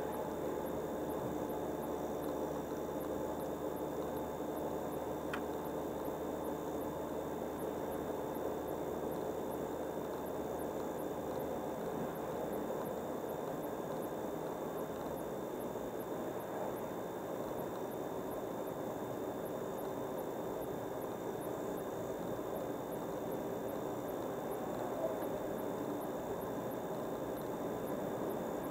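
Steady car driving noise, engine and tyres on the road at a constant speed, with a faint steady high whine.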